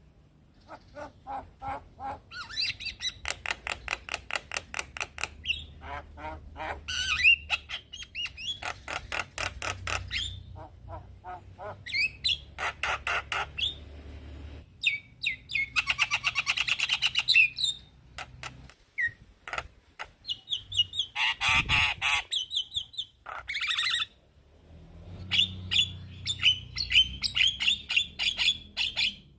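Male Javan myna singing: bursts of fast repeated notes, harsh chattering squawks and whistles, broken by short pauses.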